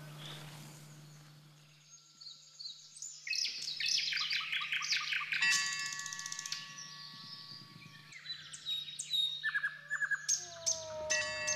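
Small songbirds chirping and singing, with quick runs of high whistled notes starting a few seconds in, over a faint steady low hum.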